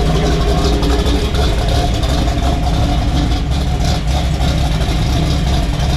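Car engine running steadily through a newly fitted custom exhaust system, with an even, smooth exhaust note.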